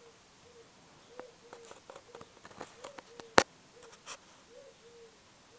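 White Swiss Shepherd puppies whimpering softly, a short low whine about twice a second, with scattered light clicks and taps and one sharp click about three and a half seconds in.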